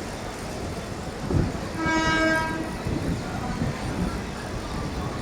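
A single steady horn note lasting about half a second, a little under two seconds in, over a steady traffic rumble. A sharp thump comes just before it.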